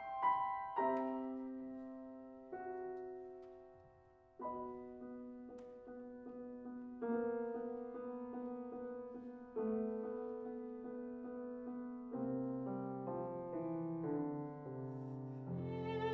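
Steinway grand piano playing a soft solo passage of held chords that die away between pauses, some chords repeated in a quick pulse. Near the end a violin comes in, playing with vibrato.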